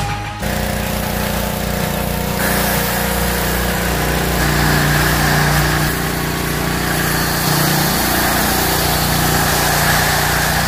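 Pressure washer motor running steadily, and from about two seconds in the hiss of its spray hitting the side of a foam-covered truck.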